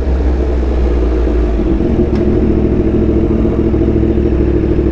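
Yamaha R1M's crossplane inline-four engine running at steady revs through an SC Project exhaust while riding.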